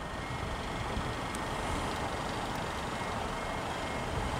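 Class 150 Sprinter diesel multiple unit rolling slowly into the platform, its underfloor diesel engine running steadily.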